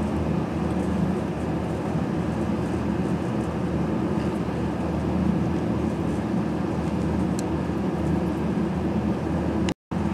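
Steady drone of a shop heater running, with a few faint clicks from wires being handled; the sound cuts out for an instant near the end.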